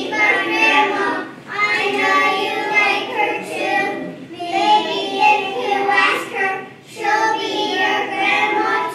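A group of young children singing a song together, in four phrases with short breaks between them.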